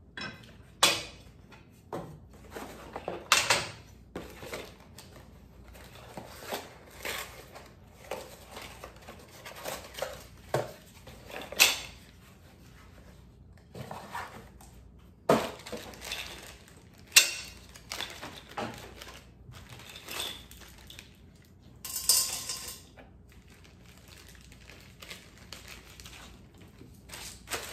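Steel plates and bolts of a bandsaw stand clinking and clanking on a wooden workbench as they are handled, in irregular sharp knocks a few seconds apart. A short rustle of a plastic hardware bag comes a little past two-thirds of the way in.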